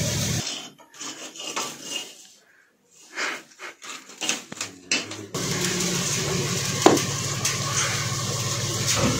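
Light knocks and rustles, as of onions and bricks being shifted by hand among the pile, in the first half; after that a steady low hum with scattered handling clicks and one sharp click about seven seconds in.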